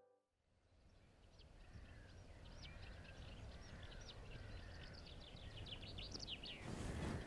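A songbird singing a long run of short, high chirping notes that come faster toward the end, over faint outdoor background noise. A brief rush of noise rises near the end.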